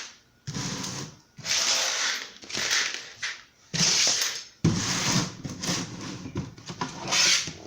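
Handling noise from a cardboard box being picked up and moved: several spells of rustling and scraping, with a sudden thump about four and a half seconds in.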